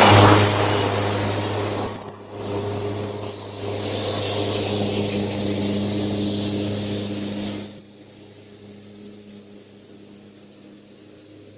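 Cub Cadet riding lawn mower's engine running with a steady hum, dipping briefly about two seconds in, then dropping to a faint hum about eight seconds in.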